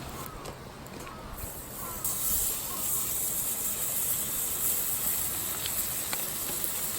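A steady hiss that swells in about a second and a half in and then holds.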